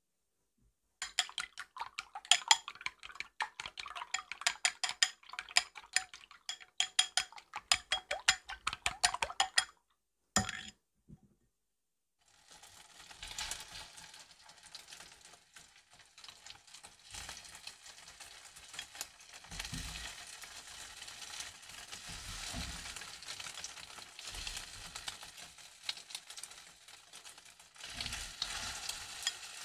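Eggs being beaten in a ceramic bowl, a rapid run of clinking strokes for about nine seconds. After a short pause, egg-coated fish cake skewers sizzle steadily in a frying pan, with a few soft knocks of chopsticks against the pan.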